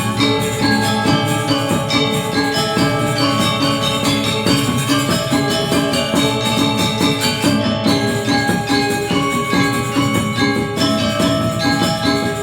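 Balinese gamelan playing: bronze metallophones struck in fast interlocking runs over a steady pulse, with jingling cymbals.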